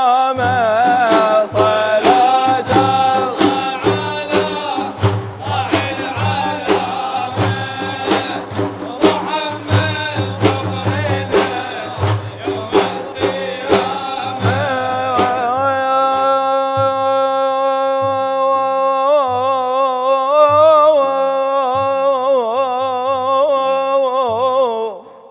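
Madih praise music between sung lines: large hand-held frame drums beat a dense rhythm under a sustained melodic line. About 15 seconds in the drumming mostly drops away, leaving long held tones that waver in pitch near the end.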